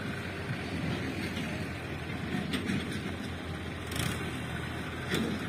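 John Deere 5050 tractor engine running steadily under heavy load while pulling two trailers stacked with sugarcane, with two sharp clicks in the second half.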